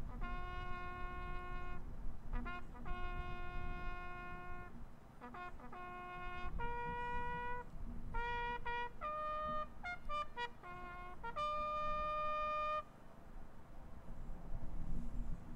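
Solo bugle call played on a brass instrument as part of a remembrance service: a run of clear, separate notes on a few pitches, ending in one long held high note that stops about thirteen seconds in.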